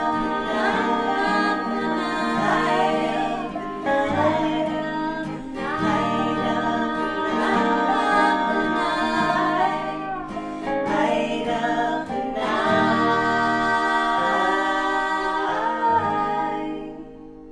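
An Americana trio singing in three-part close harmony over acoustic guitar and dobro, closing on a final chord that fades out near the end.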